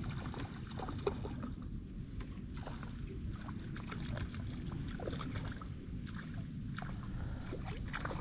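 Water lapping and sloshing against the hull of a small fishing boat, with scattered light splashes and knocks over a steady low rumble.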